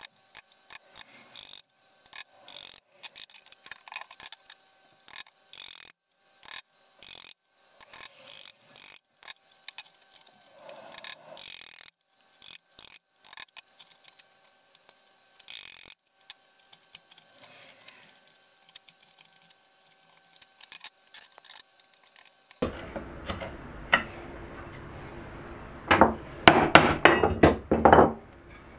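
Bench chisel chopping and paring out a dovetail socket in wood by hand: many short, crisp cuts and clicks as the blade severs and levers out the fibres, with brief pauses between. Near the end comes a cluster of louder knocks.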